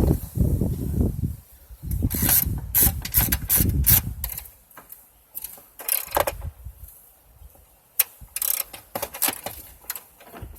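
Ratchet wrench clicking in short runs as loose bolts on a car's metal battery shelf are turned out, with a low rumble in the first few seconds.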